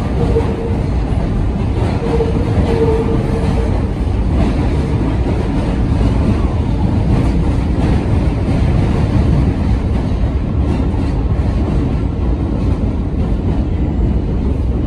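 Budd R32 subway car running at speed, heard from inside the car: a steady, loud rumble of wheels on the rails and running gear, with a faint whine twice in the first few seconds.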